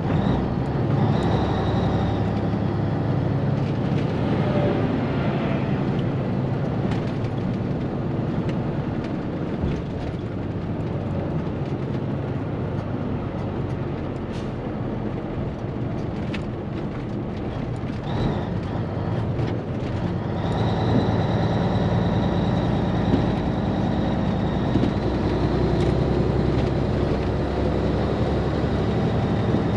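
Cabover Peterbilt semi truck's diesel engine and road noise inside the cab while cruising at highway speed. It grows louder about two-thirds of the way through, when a steady high whine joins the rumble.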